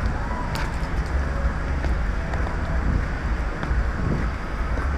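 Steady low rumble on a covered, handheld action camera's microphone, with a few faint clicks and rubs as the camera shifts against whatever is covering it.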